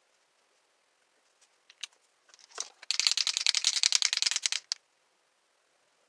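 A marker shaken in the hand, rattling in quick sharp clicks, about a dozen a second, for about two seconds, after a few lighter taps.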